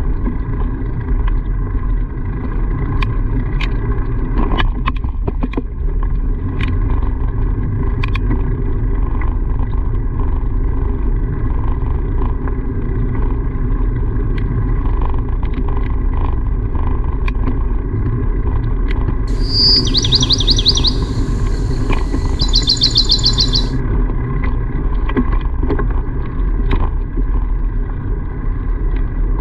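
A steady low rumble, with two short runs of rapid high chirps, bird-like, about two-thirds of the way through.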